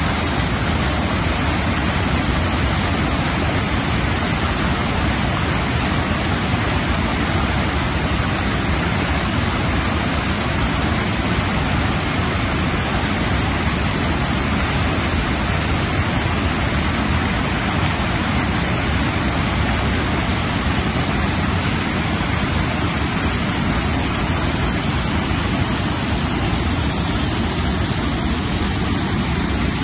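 Steady, loud rush of a swollen river pouring over a stepped concrete weir, the even churning noise of whitewater cascading down the steps.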